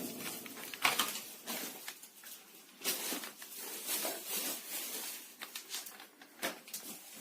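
Irregular clicks, taps and rustling, with no vacuum motor running.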